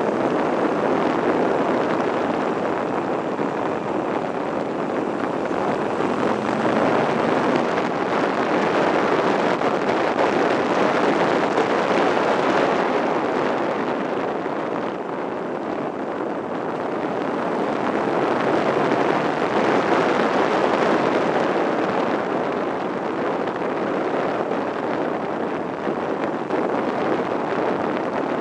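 Wind rushing over the handlebar-mounted camera's microphone, mixed with the running of a Buell XB9SX's air-cooled V-twin engine, on the move. The noise jumps up sharply at the start, then swells and eases several times with the bike's speed through the bends.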